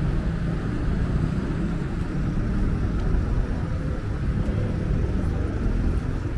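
A motor vehicle's engine running close by, a steady low rumble with a faint hum of engine tones, over city street noise.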